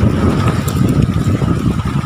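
Strong wind buffeting the microphone, with lake waves splashing against the shoreline rocks.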